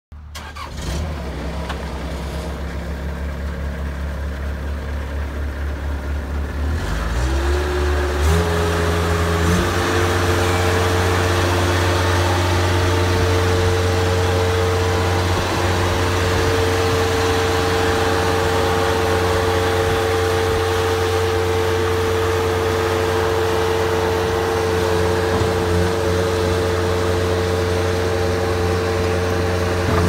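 Bobcat 763 skid steer loader's diesel engine running, first at a low idle, then throttled up in steps about seven to nine seconds in and holding steady at high revs with a steady whine over the engine sound.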